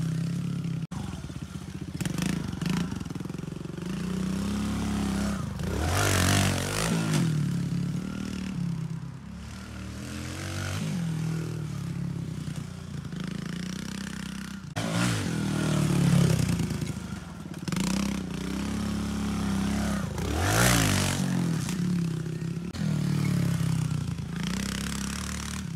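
Small pit bike engine revving up and down as the bike rides around a dirt track, the pitch rising and falling repeatedly and loudest in several close passes.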